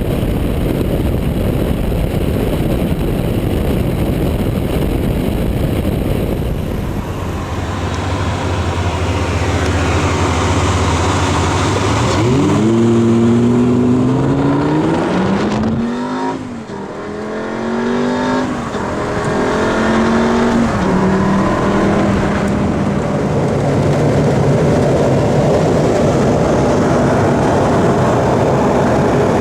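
Lamborghini Gallardo V10 engine under hard acceleration over a steady rushing noise. Its note climbs about halfway through, drops briefly, climbs again, then settles to a steadier, lower pitch.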